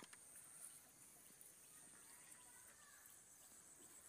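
Near silence: faint outdoor ambience, with a single sharp click at the very start.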